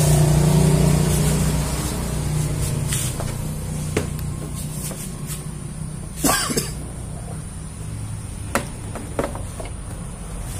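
Handling noise from fitting a foam yoga-mat liner against a car door panel: a few sharp knocks and clicks and a brief rubbing scrape about six seconds in, over a steady low hum.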